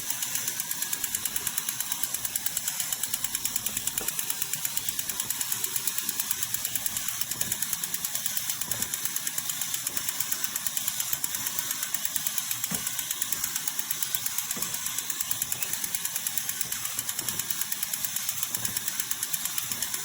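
Toy bulldozer's drive mechanism running, its gears clicking in a rapid, even rhythm.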